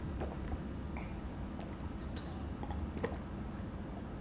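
A man drinking soy milk from a plastic cup, with a few faint swallowing clicks about a second apart over a steady low kitchen hum.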